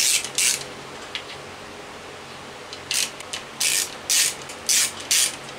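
Hand socket ratchet wrench worked back and forth, its pawl clicking in short bursts: two near the start, then five strokes about half a second apart from about three seconds in.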